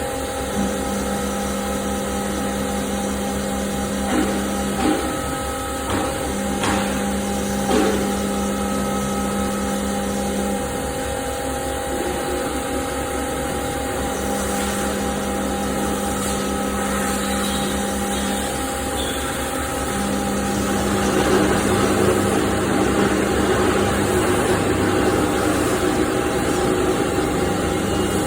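CNC machining center milling SS400 steel: steady spindle whine with a low hum that switches on and off every few seconds, a few knocks in the first eight seconds, and a louder, noisier cutting sound from about 21 seconds in.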